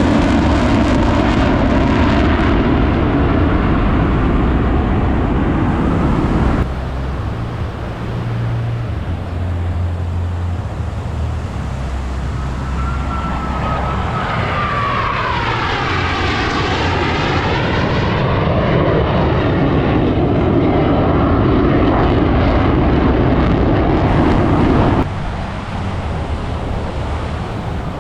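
Jet noise from Blue Angels F/A-18 Super Hornets flying past. It changes abruptly twice where passes are cut together. Around the middle, one jet's pass sweeps down in pitch and then back up as it goes by.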